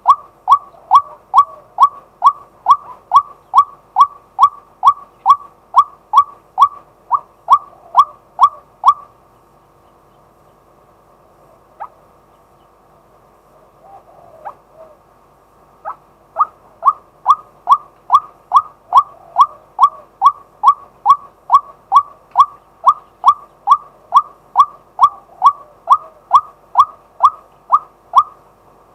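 Male white-breasted waterhen calling: a fast, even series of short notes, each sliding down in pitch, about three a second. The series breaks off for several seconds about nine seconds in, then starts again and runs on.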